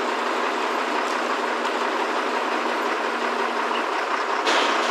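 Crane engine and hydraulics running steadily while lifting a boat in slings. A steady low hum stops just before the end, and a sudden hiss of air follows.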